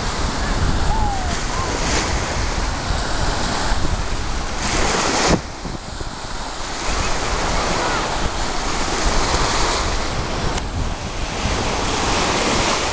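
Storm-driven surf from a tropical storm breaking and washing against a seawall, with strong wind buffeting the microphone. A louder rush about five seconds in cuts off suddenly.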